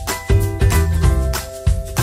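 Upbeat background music with a steady beat, bass and bright pitched notes.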